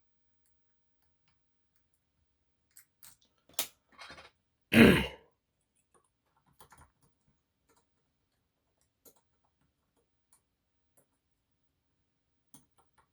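Faint, scattered clicks of lock picks probing the sprung side sliders and pins of a Delta dimple lock, with one loud short noise about five seconds in.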